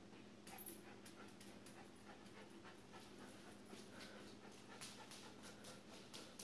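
Miniature Pinscher dog panting faintly in quick, uneven puffs.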